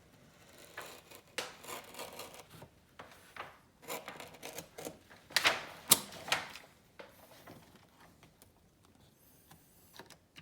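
Blade slicing freehand through two overlapping layers of grasscloth wallpaper: scratchy rasping strokes in several runs, the sharpest and loudest about five to six seconds in.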